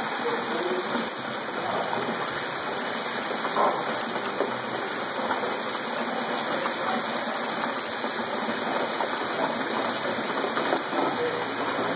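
Rain falling steadily in a storm, an even hiss that does not let up.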